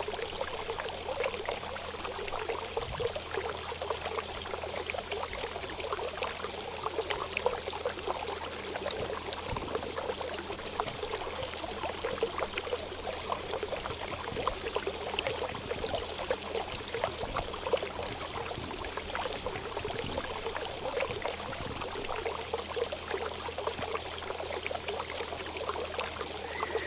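Running water pouring and trickling steadily, a continuous splashing with many small irregular spatters.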